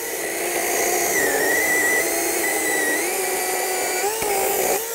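Greenworks battery-powered electric chainsaw running at full speed with a steady whine, its pitch dipping and recovering slightly as it cuts through wood; it stops abruptly at the very end.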